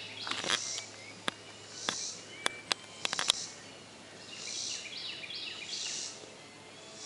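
Outdoor ambience with birds singing in short repeated phrases, and a run of irregular sharp clicks in the first three seconds or so.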